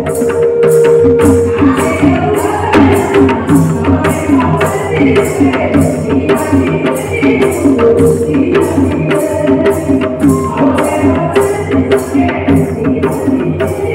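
A woman singing a folk song into a microphone. Percussion keeps a steady beat of about two strokes a second under her voice, and she holds some long notes.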